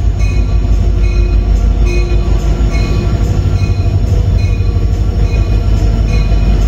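Passenger train pulling into the station: a loud, steady low rumble, with short high-pitched tones recurring about twice a second.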